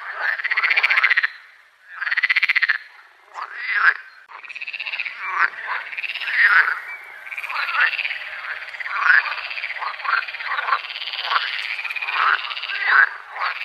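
A chorus of frogs calling: many overlapping pulsed croaks, each about a second long and rising then falling in pitch. There is a short lull about two seconds in, and from about five seconds in the calls run together into a continuous chorus.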